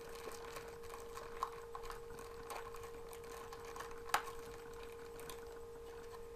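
Faint clicks and light handling noise from fingers working a small plastic toy figure and its dog tag, with one sharper click about four seconds in, over a steady faint hum.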